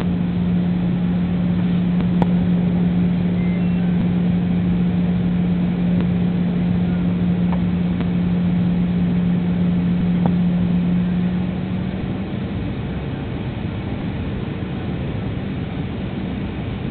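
Jet airliner cabin noise during the landing approach: a steady rush of engines and airflow with a low, even hum. It eases off slightly about twelve seconds in.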